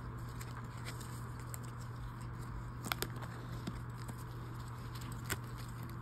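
Light clicks and rustling of trading cards being handled and laid down by gloved hands, with a few sharper clicks, over a steady low hum.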